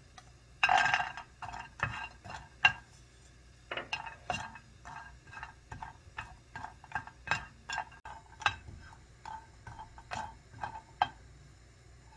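Shelled walnut pieces tipped from a small bowl into a dry nonstick wok, a brief dense clatter about a second in, followed by a string of sharp clicks and taps as a wooden spatula pushes the nuts around the pan.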